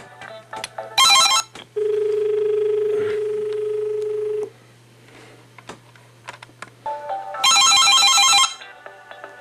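Desk telephone ringing with an incoming call: a short warbling electronic ring about a second in and a second, longer ring near the end. Between them a steady tone sounds for a few seconds, with a few faint clicks over a constant low hum.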